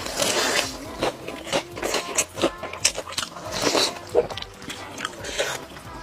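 Close-miked mukbang eating sounds: irregular chewing and biting, with quick mouth clicks and a few louder noisy bites.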